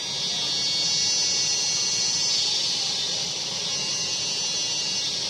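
Cicadas droning in a loud, steady high-pitched chorus that swells up at the start.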